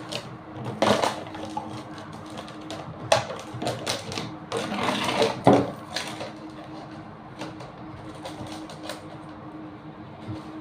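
A rainbow lorikeet making irregular clicks and scratches, with short harsh bursts about one, three and five seconds in, over a faint steady hum.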